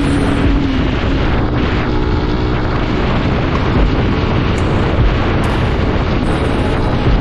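Wind rushing over the microphone of a moving motorcycle, with the Yamaha SZ-16's single-cylinder engine running underneath; a steady engine hum fades out about a second in.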